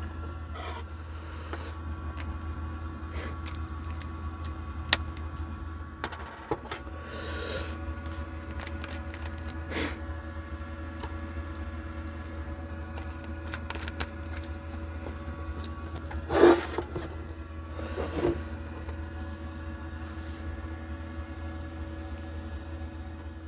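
Small clicks and knocks of chopsticks, dishes and a cup on a folding table during a meal, over a steady low hum. A louder clatter comes about sixteen seconds in, with another a couple of seconds later.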